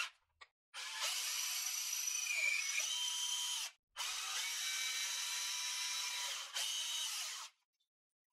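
Cordless drill spinning a wooden dowel held in its chuck while the dowel is pressed in #300 sandpaper to smooth it. The drill runs in two spells of about three seconds each with a short stop between, after a few short clicks at the start.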